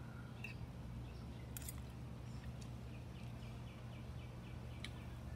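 Faint clicks of a metal fork against a ceramic plate, a few times, over a low steady hum. In the middle there is a short run of faint, evenly repeated bird chirps.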